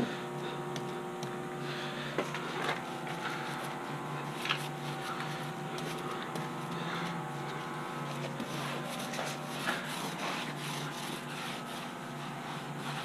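Soft rubbing and scraping over glue-wet canvas on a wooden camper wall as it is smoothed down, with a few small ticks, over a steady low hum.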